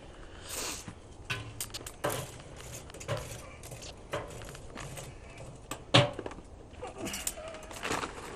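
Metal tongs and lumps of charcoal clinking and knocking against a charcoal water smoker as coal is added and moved around. There is a string of short, sharp clicks about once a second, the loudest knock about six seconds in.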